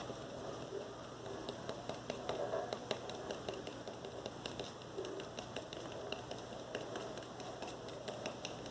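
A stone handled close to the microphone, making many small irregular taps and clicks over a soft rustle.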